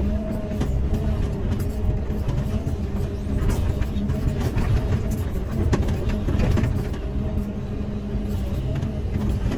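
Caterpillar 320E excavator's diesel engine running steadily under load, heard from the cab, with a wavering hydraulic whine. The bucket scrapes through dry dirt, giving scattered scrapes and clicks of stones.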